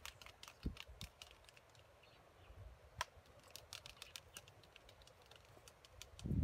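Waved albatrosses bill-fencing in their courtship dance, clacking their bills together. A few sharp clacks come early on, and they turn into a quick, irregular clatter after about three seconds.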